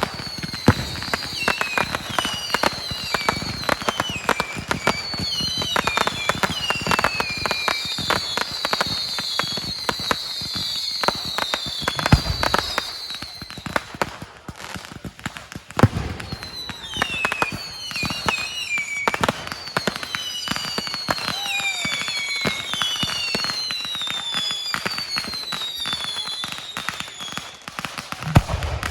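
Fireworks going off in a dense barrage of crackles, with many short falling whistles and three deep booms, one of them near the end.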